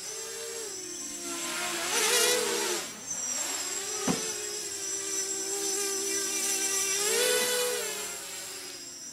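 Small 280 mm racing quadcopter's motors and props whining in flight, the pitch rising sharply twice as the throttle is punched, around two seconds in and again around seven seconds in, then settling back. A short click about four seconds in.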